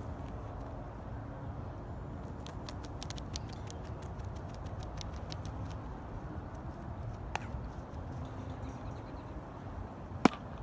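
Outdoor ambience: a steady low rumble with scattered light clicks a few seconds in, and one sharp knock near the end, the loudest sound.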